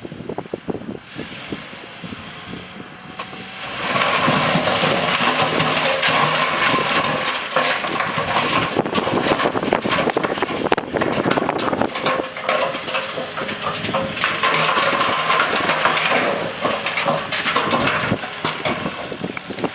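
Heavy earthmoving machinery working dirt: an engine running under load amid dense crunching and clattering of soil and rock. It grows much louder about four seconds in.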